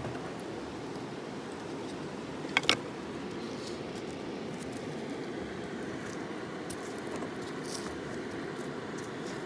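Steady rushing of a river. About two and a half seconds in, two sharp metallic clinks in quick succession: a metal tool striking rock.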